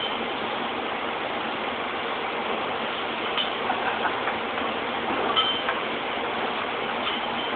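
Steady factory machinery noise, an even hum and hiss, with a few light clinks of parts being handled from about halfway on.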